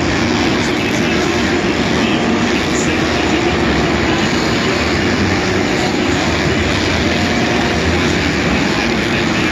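Several supercross motorcycle engines running and revving together as the bikes race around an indoor stadium track, a steady dense engine noise heard from the stands.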